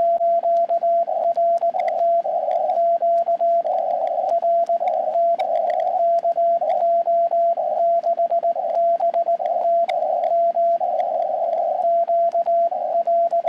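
Morse code (CW) from a small QRP ham radio's audio: a mid-pitched beep keyed on and off in dots and dashes without pause, alternating with bursts of hiss held to the same narrow pitch band by the radio's CW filter. It is the close of a summit activation, as the operator signs off (QRT).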